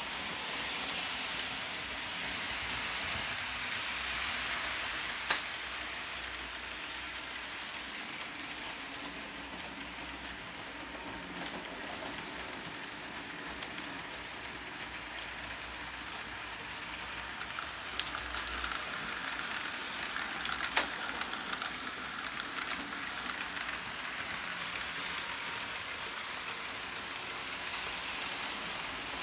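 Model trains running on the layout's track: a steady, hiss-like running noise of their motors and wheels. A sharp click sounds about five seconds in, and a few more come about two-thirds of the way through.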